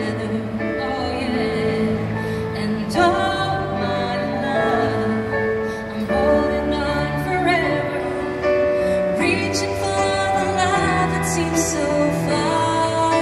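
A woman singing a slow pop ballad live into a microphone, accompanied by a Nord Electro keyboard playing held chords and bass notes.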